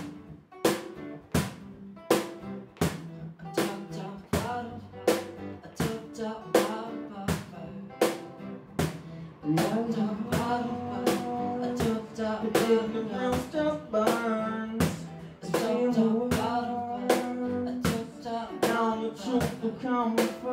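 Live acoustic band music: a cajón beating a steady rhythm of sharp slaps with acoustic guitar strumming, and a man singing into a microphone from about halfway through.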